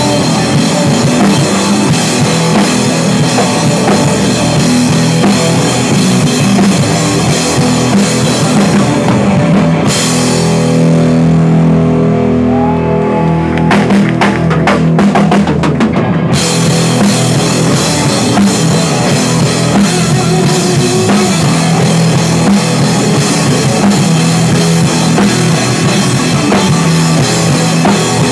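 Live rock band playing loud: electric guitar on a Gibson Les Paul over a drum kit with cymbals. About ten seconds in, the cymbals drop out, leaving held chords. Then a quick run of sharp hits brings the full band back in a few seconds later.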